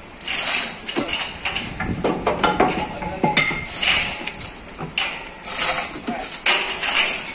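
Chain hoist being worked by hand to lift a truck engine: the chain rattles and clinks in repeated pulls, with sharp metal clicks between them.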